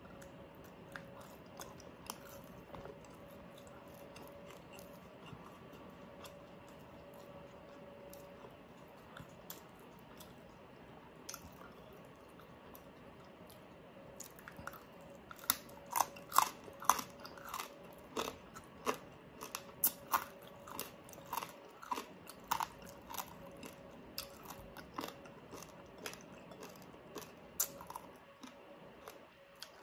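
Close-miked mouth sounds of eating pieces of crispy pata (pork knuckle): quiet chewing at first, then from about halfway a run of sharp, crisp crunches and bites.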